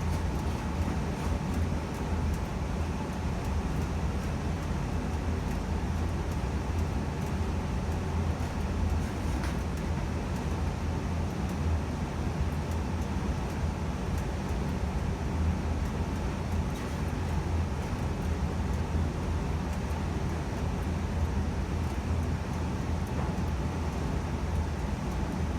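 A 2020 Evcon low-NOx gas furnace's blower fan running steadily with its burners off: a steady rush of air over a low hum. This is the fan's cool-down run, moving the remaining heat out of the heat exchanger before the blower shuts off.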